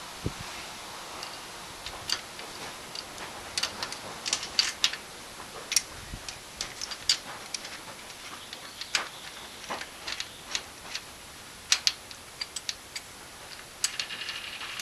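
Irregular sharp metallic clicks and clinks of hand tools and valvetrain parts being handled on a small-block Chevy V8's cylinder heads during a valve spring and rocker arm change. A brief run of rapid clicking comes near the end.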